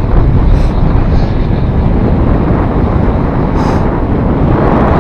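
Wind buffeting the camera's microphone: a loud, steady rush, heaviest in the low end.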